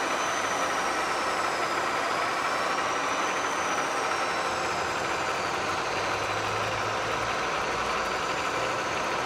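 Heavy shop machinery running with a steady mechanical noise and a faint high whine that slowly rises and falls; a low hum comes in for a second or so a little past halfway.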